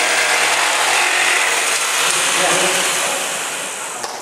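Electric jigsaw running and cutting through a thin wooden board, a steady loud sawing noise that fades near the end as the cut finishes.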